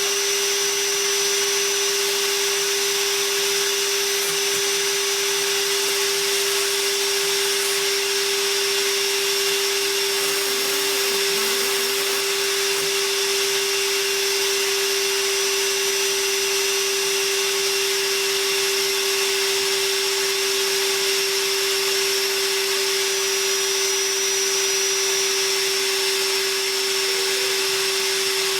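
Ridgid Cordless NXT cordless wet/dry vacuum running steadily on battery power, a constant whine over even rushing air with no change in speed.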